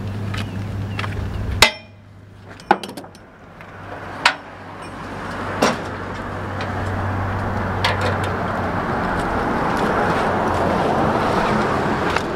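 Sharp metal clicks and clinks of ratchet tie-down straps being worked on a car trailer, a handful of separate snaps spread over several seconds. A low steady engine idle hum underneath at first cuts off abruptly, and a steady rushing noise builds through the second half.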